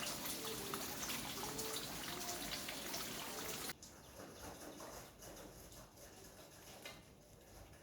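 Water trickling, with a few short chirps over it; it drops abruptly to a quieter trickle about four seconds in.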